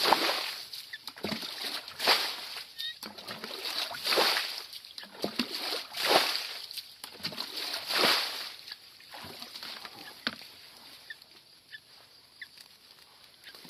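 Muddy water poured from a plastic bucket through a fishing scoop net onto grass, gushing in surges about every two seconds. The pouring stops about nine seconds in, leaving only faint rustles and small ticks.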